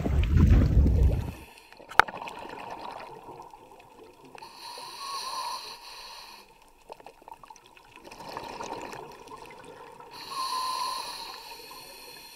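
A scuba diver breathing through a regulator underwater: bursts of exhaled bubbles rise and fade about every five to six seconds. This follows a second or so of wind noise at the surface and a sharp click about 2 s in.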